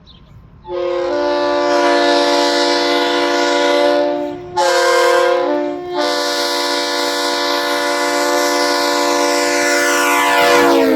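Leslie RS-3L three-chime air horn blowing: a long blast starts about a second in, breaks briefly into a short blast, then a long held chord follows whose pitch sags downward near the end as it shuts off.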